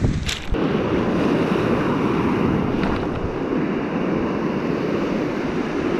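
Shallow surf washing in foam over the sand around the angler's feet: a steady rush of breaking water.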